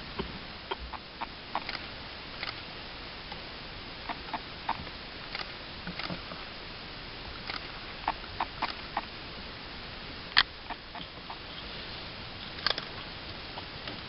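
Outdoor ambience: a steady hiss with scattered short, sharp ticks at irregular intervals, several a second at times, the loudest one about ten seconds in.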